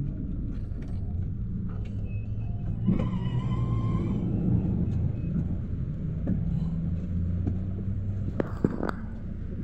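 Low engine and road rumble heard from inside a Luidor-223237 minibus, built on the Mercedes-Benz Sprinter Classic, as it crawls along and pulls to a stop. A short high squeal comes about three seconds in, and a few sharp clicks come near the end.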